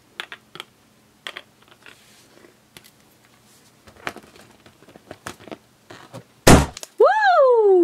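Light clicks and taps of small plastic toy engines being set down and handled, then a loud thump about six and a half seconds in, followed by a squeal that rises briefly and then falls steadily in pitch.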